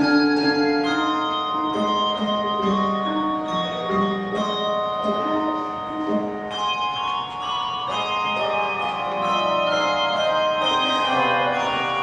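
A handbell choir of bronze handbells playing a gospel tune. Melody and chords ring out, with a new note or chord struck about every half second and the earlier notes ringing on beneath it.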